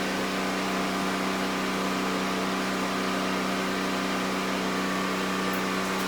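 Steady motor hum with a constant low drone and a faint hiss, holding an even level with no change.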